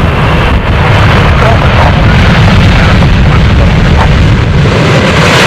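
Loud, steady low rumble of a jet airliner's engines, with wind buffeting the microphone.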